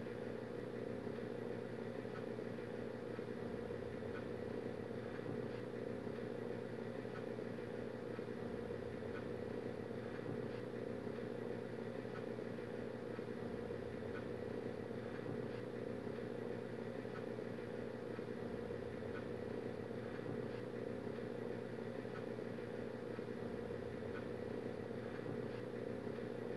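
Steady low background hum, unchanging, with faint scattered ticks.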